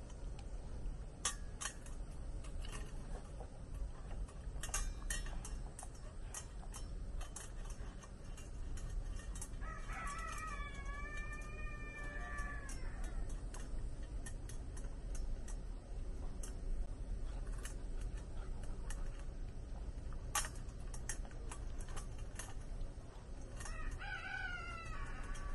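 Dog eating from a stainless steel bowl: frequent sharp clicks and crunches of teeth and food against the metal. A rooster crows twice, about ten seconds in and again near the end.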